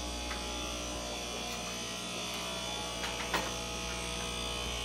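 Steady electric buzz and hum of aquarium air pumps driving sponge filters, with a couple of small clicks a little past three seconds in.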